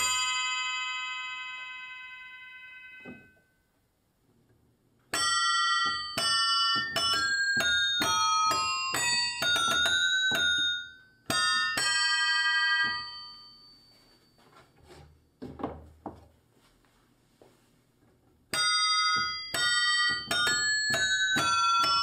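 Homemade keyboard-played bell instrument: hammers worked by piano-style keys strike a row of metal bells, each note ringing with many high overtones. A chord fades over the first few seconds; after a pause, a phrase of single notes and chords runs from about five seconds in and ends on a chord ringing out near twelve seconds. After a quiet stretch with a few soft knocks, playing resumes near the end.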